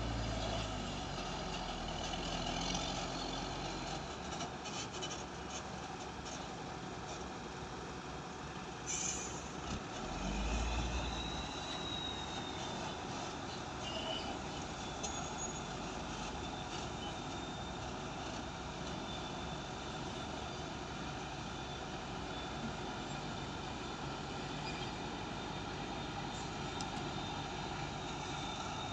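Heavy machinery running steadily, with a short hiss about nine seconds in.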